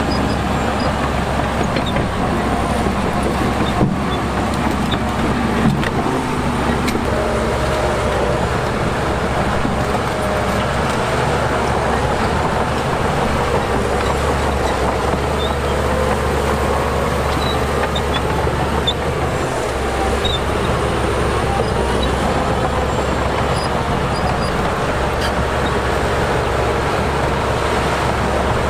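Heavy diesel earthmoving machinery running steadily, with a couple of sharp knocks about four and six seconds in.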